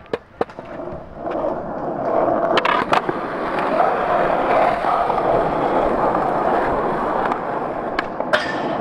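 Skateboard wheels rolling over a concrete skatepark as the skater pushes a long run-up with no ramp to gain speed, with sharp clacks of the board near the start and around three seconds in. Near the end a sharp pop and clack as the board goes onto a metal rail.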